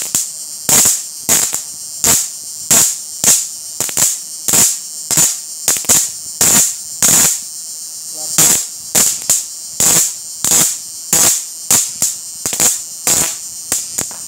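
High-voltage arcs from an IGBT electro-fishing inverter's output lead snapping against a metal strip: a sharp crackling burst about every half second, with a short pause midway. Under the bursts runs the running machine's steady high-pitched whine.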